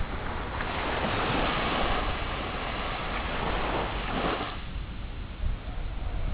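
Sea waves washing onto the shore: one wave swells up about half a second in and washes out near the end, over a steady low rumble.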